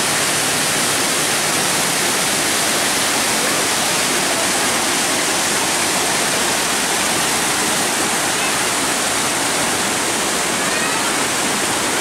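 Waterfall and the rocky stream below it: a steady, even rush of falling and tumbling white water.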